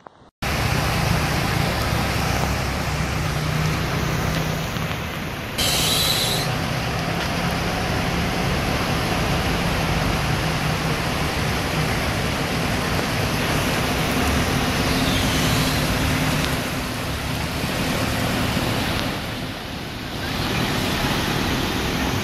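Cars and trucks driving slowly through deep floodwater, with engines running under a steady rushing hiss of water and rain. A brief, sharp hiss comes about six seconds in.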